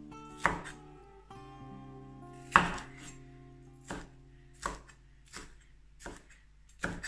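Chef's knife chopping a red bell pepper on a wooden cutting board: about seven single knocks of the blade on the board, roughly a second apart, the loudest a few seconds in.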